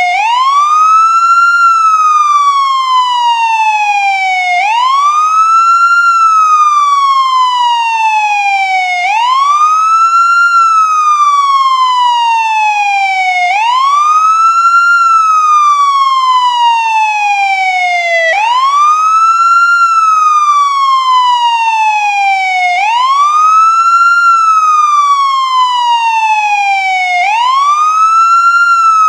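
Ambulance wail siren cycling steadily: each cycle sweeps up quickly and then falls slowly, repeating about every four and a half seconds.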